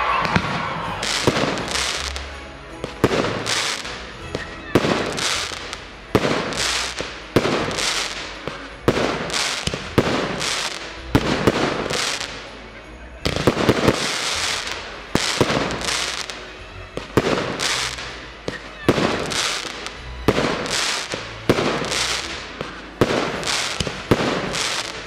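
Aerial firework shells bursting in a steady barrage, a sharp bang about every second, each one echoing, with a brief lull about halfway through.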